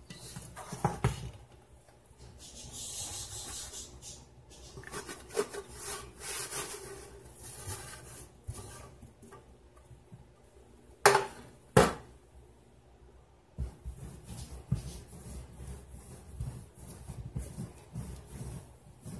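Hands squeezing and scraping sticky yeast dough for donuts in a metal bowl, making irregular rubbing sounds. About eleven seconds in, the metal bowl knocks twice sharply against the granite countertop as the dough is turned out. Then comes a run of soft thumps as the dough is kneaded on the counter.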